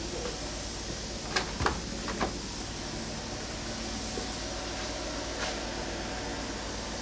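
Steady background hum with a few short knocks or clatters, a quick cluster of three between about one and two and a half seconds in and a fainter one later.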